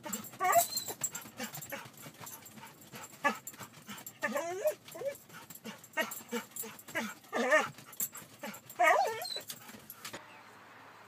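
Dog whining and yipping in short high-pitched calls every second or two, excited at a raccoon it has spotted, with scrabbling clicks between the calls.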